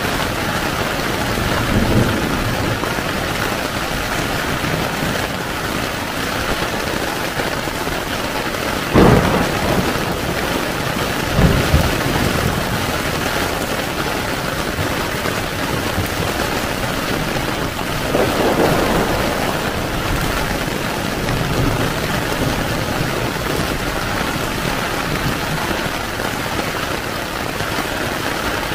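Heavy rain falling steadily on a tent, with sharp thunderclaps about nine and eleven and a half seconds in and more thunder around eighteen seconds.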